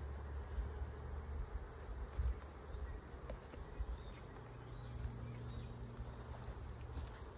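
Honeybees buzzing around an opened hive: a steady hum of many wings, with one bee droning louder for about a second around five seconds in.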